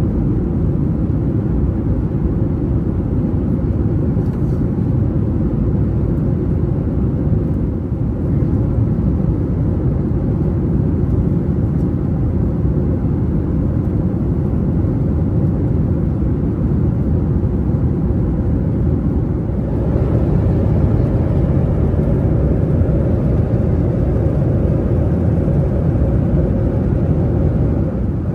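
Steady low cabin noise of a Boeing 737-800 in flight: engine and airflow noise heard from a seat in the rear cabin. It gets slightly louder about two-thirds of the way through.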